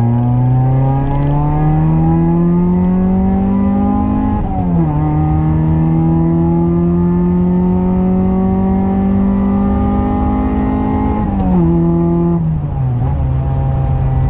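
Honda F23A four-cylinder engine running, its pitch climbing steadily for about four seconds, dropping sharply, climbing slowly again, then falling in two steps near the end. It is running again after a loose relay was reconnected, the cause of its no-start.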